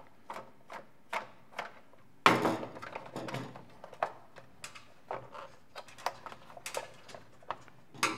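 Screwdriver working a stripped screw out of a plastic radio housing: a run of short clicks and ticks, about two or three a second, as the bit slips and catches in the worn screw head, with one louder clatter of the housing about two seconds in.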